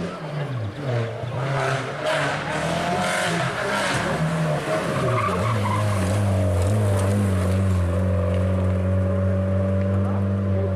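Opel Corsa OPC rally car's turbocharged four-cylinder engine driven hard. The revs drop right at the start, rise and fall unevenly for a few seconds with rushes of noise, then hold at a steady pitch.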